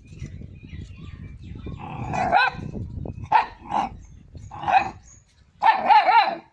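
A young dog barking at its own reflection in a mirror: a string of about five high-pitched barks starting about two seconds in, the last one drawn out and wavering.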